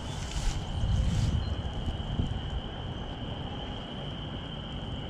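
Wind buffeting the microphone, strongest in the first second or so and then easing, over a steady high-pitched background chorus.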